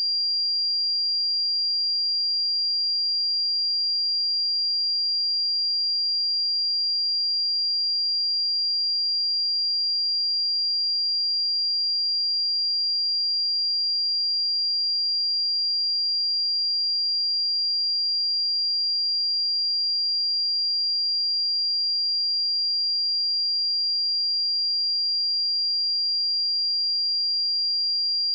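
A pure 4768 Hz sine-wave test tone, one steady high-pitched note held at a constant level.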